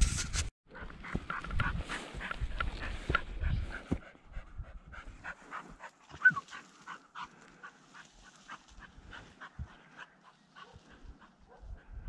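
Footsteps crunching through dry grass and brush, with vegetation rustling and crackling against the walker, and a dog panting. A sharp knock right at the start.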